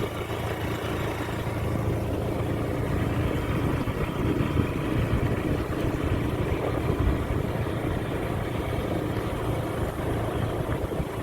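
Steady low rumble of a running vehicle engine, as heard while riding.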